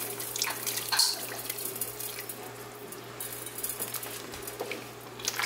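Milk pouring from a measuring cup into a pot of hot soup, then a wooden spoon stirring through the liquid, with a few light knocks.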